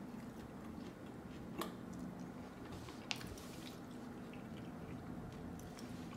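Faint chewing and mouth sounds from someone eating a fried chicken wing, with two short sharp clicks about a second and a half and three seconds in, over a steady low hum.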